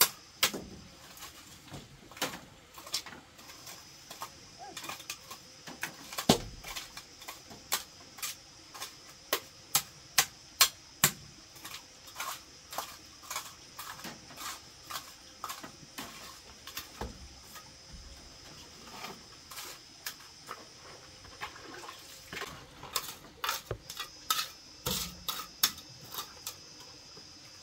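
Small metal trowel scraping and tapping through wet cement mix, an irregular run of short sharp scrapes and clicks, about one or two a second. A faint steady high whine sits behind them.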